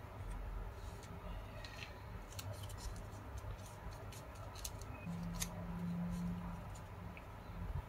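Origami paper rustling and crackling as hands fold and tuck the flaps of a paper ninja star, with a run of crisp, sharp paper clicks. A low steady hum comes in for about a second and a half about five seconds in.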